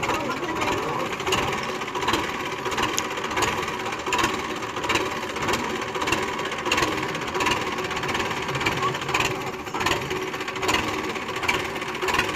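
Belarus tractor's diesel engine idling steadily, with sharp knocks repeating about once a second.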